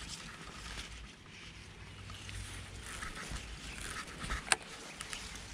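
Tall reeds rustling as they brush against the body and camera, over a low rumble of wind on the microphone. One sharp click about four and a half seconds in.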